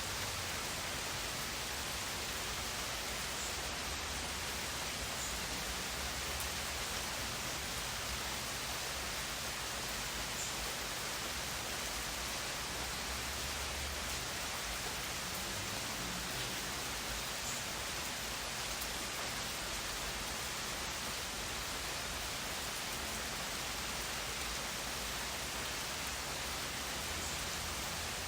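Steady rain, an even hiss with no pauses or changes.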